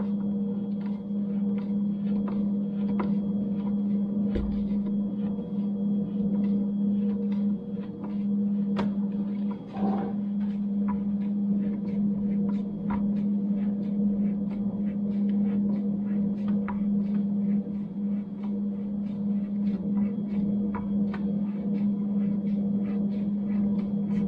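A steady low hum runs throughout, with light metallic clicks and taps scattered through it and a soft low thump about four seconds in.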